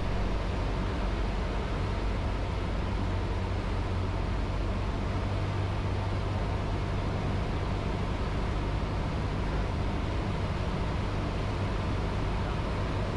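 Cessna 152's four-cylinder Lycoming engine and propeller droning steadily in flight, with the rush of air, as heard inside the cockpit.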